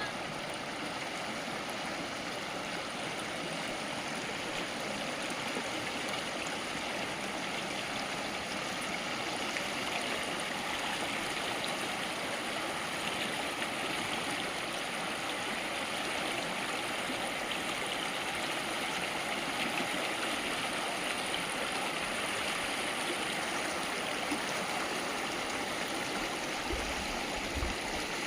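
Running water flowing steadily, an even rushing and gurgling that holds at one level throughout.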